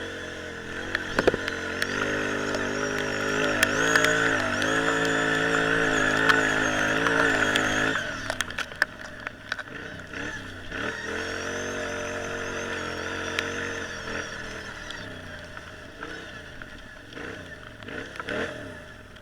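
Off-road vehicle engine running hard with the throttle held open, its pitch rising and dipping as it rounds a turn. About eight seconds in it drops to a lower, quieter note and fades as the machine moves away.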